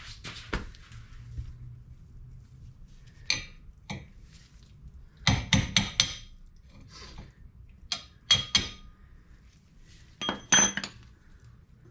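Sharp metallic taps and clinks in short bursts, a steel tool striking a cotter pin to work it through the hole in a Porsche 911 rear axle nut, some strikes ringing briefly. The loudest run is four quick taps about five to six seconds in.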